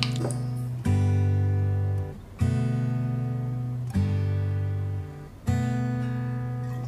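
Background music: sustained chords, each struck and left to ring, with a new one about every one and a half seconds.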